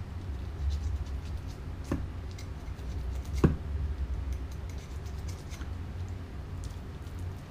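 Fillet knife cutting through a red drum's flesh over its ribcage: soft scraping and slicing with scattered faint ticks and two sharp clicks, one about two seconds in and a louder one about three and a half seconds in.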